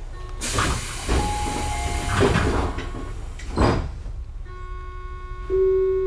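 Tobu 9000-series commuter train car standing at a station: a long hiss of compressed air with several knocks, then from about four and a half seconds a steady hum of several tones that swells near the end.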